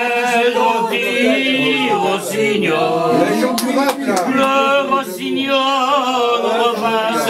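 Several voices singing together without accompaniment, with a few sharp clicks in the middle.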